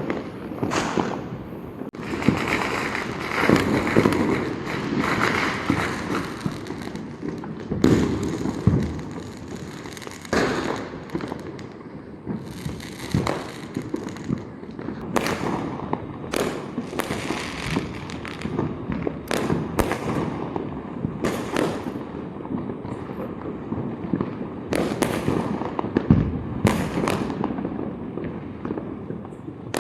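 Firecrackers and fireworks going off: many sharp bangs at irregular intervals, some loud and some fainter, overlapping with a dense stretch of crackling a few seconds in.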